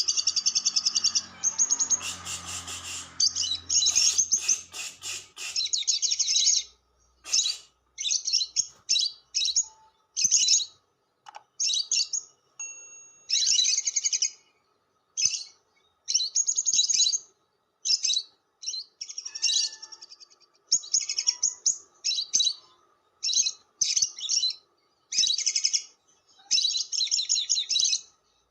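Lovebird chattering in the long 'ngekek' style: rapid, high-pitched chirping. It runs almost unbroken for about the first six seconds, then breaks into short bursts with brief pauses between them.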